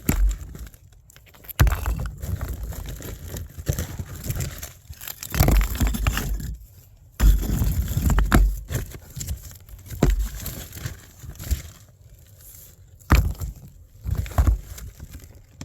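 Irregular scraping, crunching and knocking of digging in sandy ground and handling chunks of old concrete, several separate bouts with short pauses between them.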